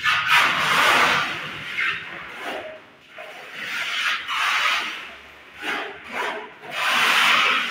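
Plastering trowel scraping wet cement mortar across a wall by hand, in repeated long strokes about one every second or two.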